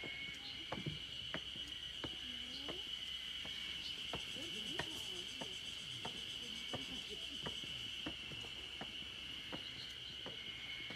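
Steady high-pitched insect drone from the surrounding forest, with evenly paced footsteps on stone steps about every two-thirds of a second.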